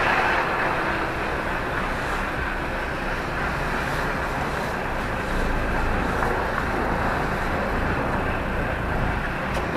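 Lorry's diesel engine running, heard inside the cab as the truck creeps across an icy, snow-packed yard. There is a steady hiss over it, and the low rumble grows stronger about five seconds in as the engine pulls harder.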